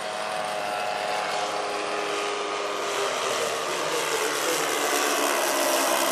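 The four propeller engines of a large radio-controlled scale model Super Constellation airliner make a steady multi-tone drone in flight. They grow louder as the model closes in, and the pitch drops slightly as it passes near the end.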